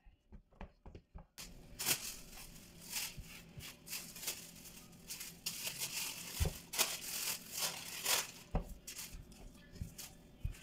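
Clear plastic wrapping crinkling and rustling as it is pulled open and handled, with many small sharp crackles. A few faint taps come before it starts, about a second and a half in.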